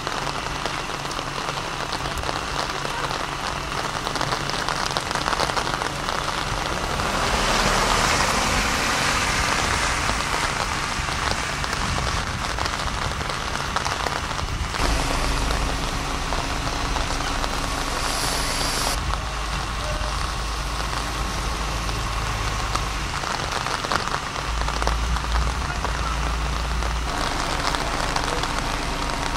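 Steady rain falling, a hiss with no pauses that swells a little about a quarter of the way in. A low rumble comes and goes twice, around the middle and again later.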